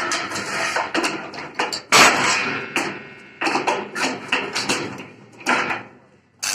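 Hammer blows on steel, about seven or eight irregular strikes, each ringing briefly as it fades. The strongest strike comes about two seconds in.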